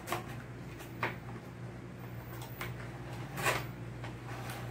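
Cardboard box of a microphone pop filter being handled and slid open: a few light taps, then a short sliding rustle about three and a half seconds in, over a steady low hum.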